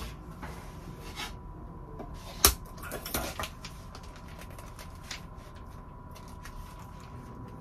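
Hands handling sticker sheets and a folder: light rustling of paper and plastic with small ticks, a sharp click about two and a half seconds in, and a short burst of rustling just after.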